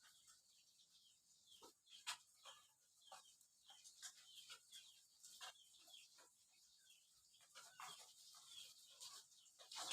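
Small mujair fish deep-frying in hot oil: faint, irregular crackling and popping over a soft sizzling hiss.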